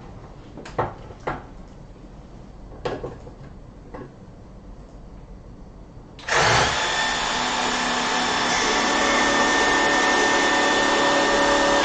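A few sharp handling clicks, then about six seconds in a cordless battery pressure washer starts and runs steadily, with its motor and pump whining over the hiss of the water spray, before cutting off suddenly near the end.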